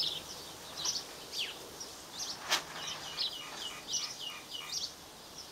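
Birds chirping in the background, short high calls scattered throughout, with a quick run of about five repeated notes a little past three seconds in and one sharp click about halfway.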